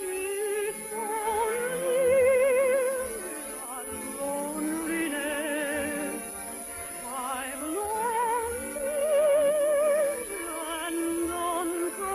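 A soprano singing a slow, operetta-style melody with wide vibrato, holding long notes that rise and fall, the loudest about two seconds in and again near nine seconds.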